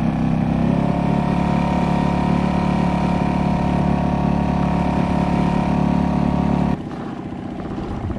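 Small outboard motor running steadily at cruising speed, pushing an inflatable boat across open water. Near the end the sound drops abruptly to a quieter engine noise.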